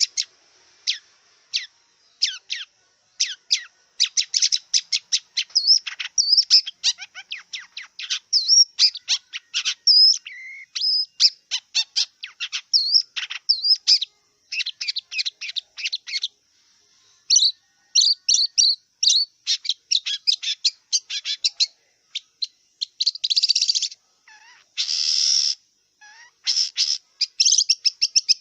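Long-tailed shrike (cendet) singing a rapid, chattering song of short sharp notes and quick slurred whistles, broken by two harsh rasping calls near the end.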